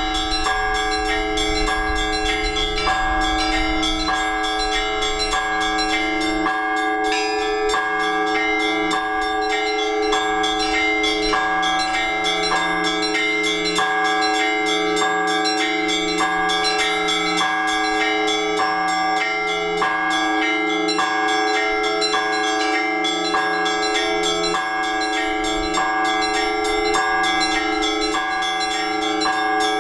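Orthodox church bells rung together in a steady rhythmic peal, several bells of different pitches struck in quick succession over the hum of the larger bells. This is ringing that calls the faithful to the all-night vigil. A low wind rumble on the microphone fades out about six seconds in.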